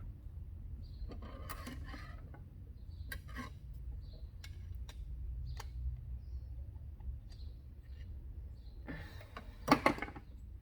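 Small metal clicks and clinks of hand-work on a carburetor while its needle is worked loose and pulled out, over a low steady hum. A louder clatter comes near the end.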